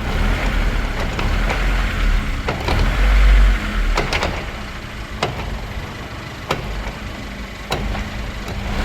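Mitsubishi Pajero TR4 rolling slowly with its engine running low, and a sharp click from the driveshaft universal joint about once a second: the sign of a worn, faulty U-joint.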